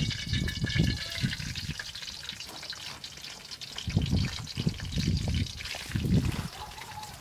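Hot oil sizzling in a black iron wok, loudest at the start and slowly easing off. Bursts of low rumble come through in the first second and again in the second half.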